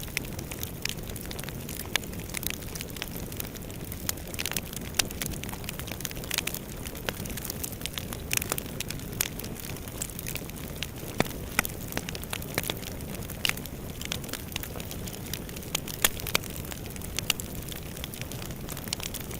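Fire burning in a fireplace: a steady low rush of flames with frequent, irregular sharp crackles and pops.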